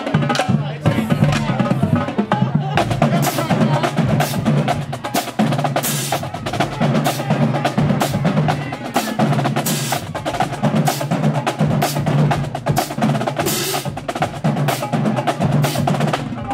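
Marching band drumline playing a fast cadence: rapid snare drum strokes over a low tone that pulses in rhythm underneath.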